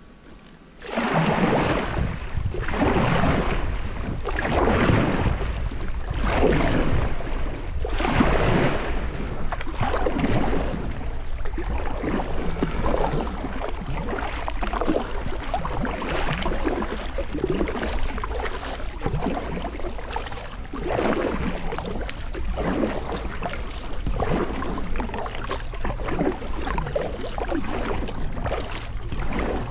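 Kayak paddle strokes swishing and splashing through the water in a steady rhythm, starting about a second in, over a low rumble.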